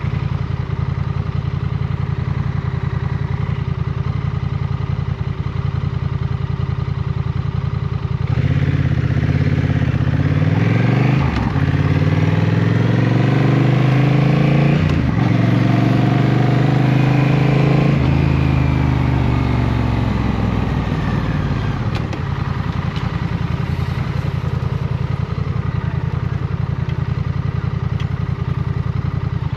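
Motorcycle engine running steadily, then accelerating about eight seconds in, its pitch climbing in steps with breaks for gear changes. It eases off and settles back to a steady cruising drone about twenty seconds in.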